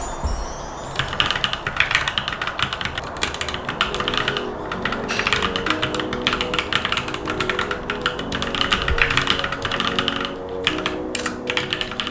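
Fast typing on a newly built mechanical keyboard: a rapid, continuous run of key clacks that starts about a second in, over background music.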